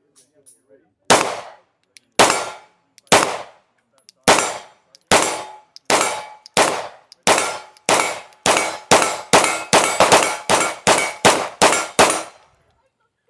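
A string of about twenty gunshots, each followed by a metallic ringing typical of rounds striking a steel target, starting at about one a second and speeding up to about three a second before stopping.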